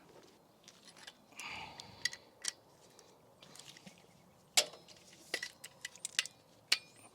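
Scattered light metallic clicks and clinks of bolts and hand tools, the loudest a little after halfway, as the brake caliper bolts are threaded in by hand.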